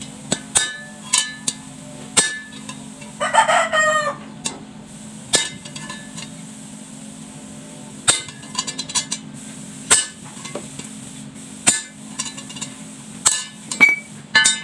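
Claw hammer striking a steel punch to peen over the rivets on a string-trimmer plate laid on a steel rail: about a dozen sharp metallic taps at irregular intervals. A rooster crows once, about three seconds in.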